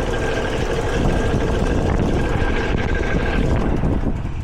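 Outdoor air-conditioner condenser unit running: a steady whir from the condenser fan with a faint hum under it. The fan's motor is worn, with a loose shaft that has let the blade fall off.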